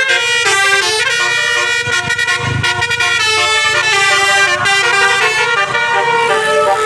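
Telolet horn on an Indonesian tour bus playing a tune: several horn notes sound together and step from pitch to pitch in a continuous melody.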